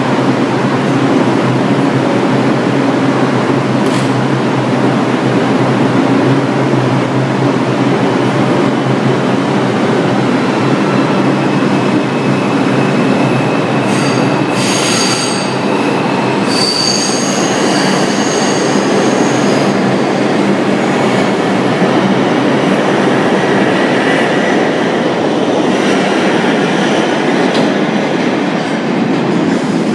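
New York City Subway R142-family train leaving the platform, with a dense steady rumble of the cars. About halfway it picks up high squealing tones from the wheels and propulsion. Near the end there are whining tones that rise in pitch as the train speeds away.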